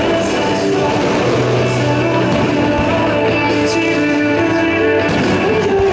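Loud music with guitar, played over the stadium loudspeakers during a fireworks show.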